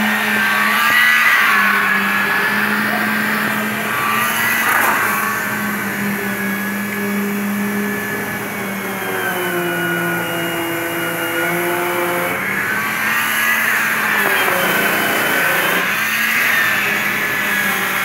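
An engine running steadily with a constant low drone; its pitch sags slightly around the middle and then picks up again.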